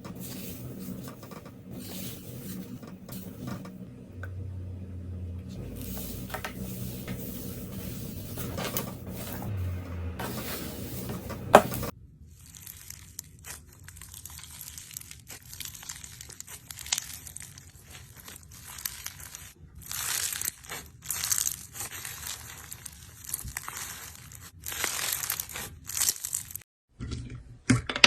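Slime being worked by hand, making crackling, crinkling and popping sounds. The sound changes abruptly about 12 seconds in, from a denser, lower stretch to sparser, sharper crackles.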